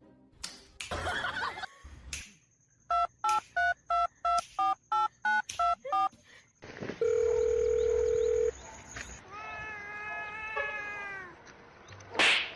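Telephone keypad tones: about ten short beeps in quick succession, then a steady tone held for about a second and a half. A short pitched sound follows after it.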